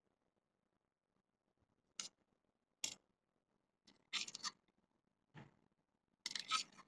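Steel spoon scraping and clinking against a small steel bowl while stirring a thick spice stuffing, in short strokes. There are two quick scrapes about two and three seconds in, then longer bursts of scraping around four seconds and again near the end.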